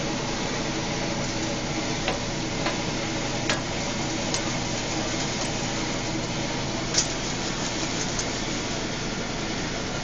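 Top-loading washing machine running, a steady even noise with a low hum. A few sharp clicks or taps sound over it, the loudest about seven seconds in.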